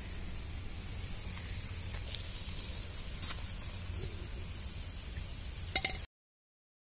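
Steady background hiss and low rumble, with a few soft clicks from fingers picking fried egg yolk off a leaf plate; the sound cuts off to silence about six seconds in.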